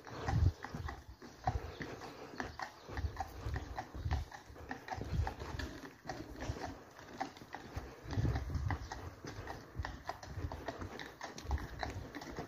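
Hooves of two horses walking on a tarmac path: a steady clip-clop of many short, sharp clicks in an uneven rhythm, with low, uneven rumbles underneath.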